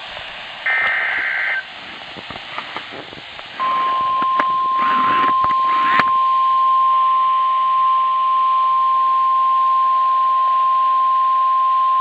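A NOAA weather radio sounding a tornado warning alert. About a second in comes a short burst of warbling data tones from the digital alert header. A little under four seconds in, the single steady 1050 Hz warning alarm tone starts and holds.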